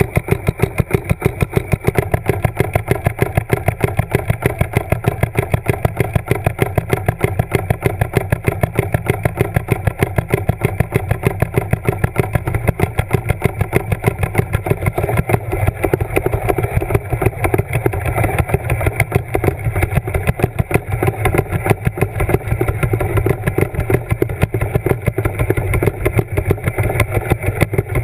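A motor or engine running steadily with a fast, even pulse and a low hum, heard underwater.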